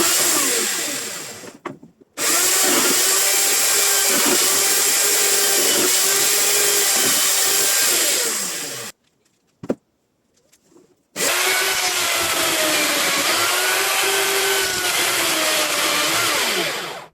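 Electric chainsaw cutting wood, running in three spells with short stops between them. Its motor pitch dips again and again as it takes the load, and there is a click in the second pause.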